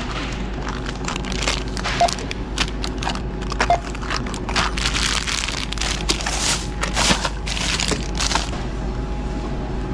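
Plastic packaging crinkling and rustling as zip bags of soft-plastic fishing baits and a blister pack of jigs are handled, scanned and stuffed into a plastic shopping bag; the crinkling stops near the end. Two short barcode-scanner beeps come about two and three and a half seconds in.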